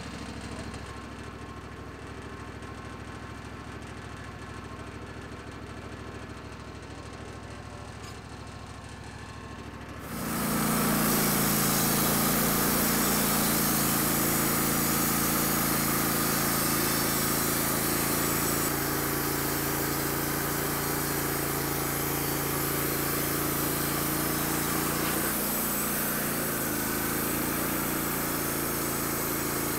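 Wood-Mizer LT15 Wide bandsaw mill's engine running at a low, steady idle, then about a third of the way in it comes up to speed with a sudden jump in loudness as the band blade starts sawing through the log. The cut then runs loud and steady, engine hum under a dense hiss of blade and sawdust.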